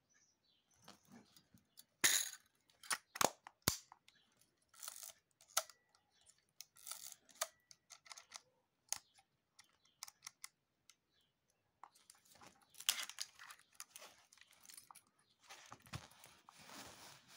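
Porst compact-reflex 35 mm SLR camera body being handled: a string of sharp mechanical clicks and snaps from its film back door and top-plate controls, the strongest few about two to four seconds in, with rustling of fingers on the body near the end.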